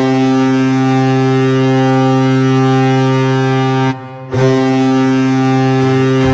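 Hockey goal horn blowing: a deep, steady blast of about four seconds, a half-second break, then a second blast.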